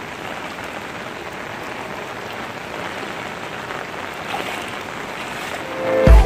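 Knee-deep muddy floodwater swishing around the legs of someone wading through it, a steady watery rush with rain falling on the water. Music with a heavy bass comes in right at the end.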